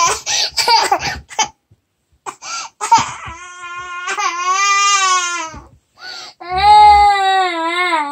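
Two-year-old toddler crying in protest at being put to bed: short choppy sobs at first, then after a pause two long, drawn-out wails.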